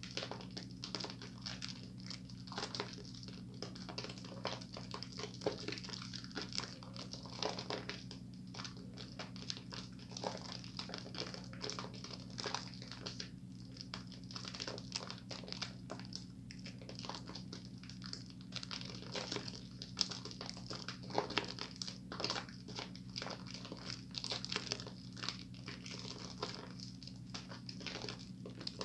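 Hands working thick soap lather: continuous wet squishing and crackling of foam as it is squeezed and rubbed, over a steady low hum.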